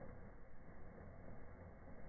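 Faint, steady fizzing and crackling of a fireplace firework burning among the logs, throwing sparks.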